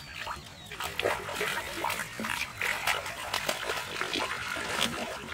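Rapid, irregular water splashing in a shallow canal, as a hooked fish thrashes at the surface while being pulled in.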